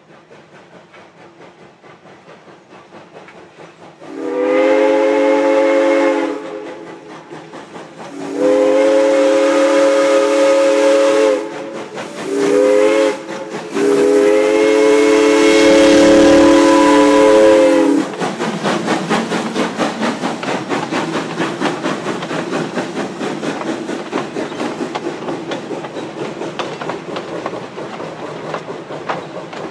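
The chime steam whistle of Arcade and Attica 2-8-0 steam locomotive No. 18 blows four times, long, long, short, long: the grade-crossing signal. The locomotive then passes close by, and the coaches' wheels click steadily over the rail joints.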